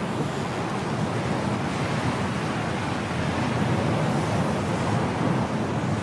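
Strong wind of a snowstorm blowing steadily.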